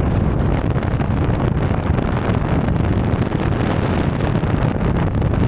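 Wind buffeting the microphone of a camera held at the open window of a moving car, over steady road and vehicle noise.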